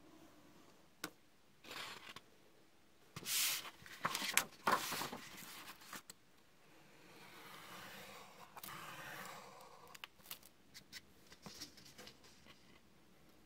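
Handling noises from miniature crafting: light taps and clicks as a thin painted wooden lattice panel and paper are handled, with a cluster of louder scraping rustles about three to five seconds in and a softer, longer rubbing from about seven to ten seconds.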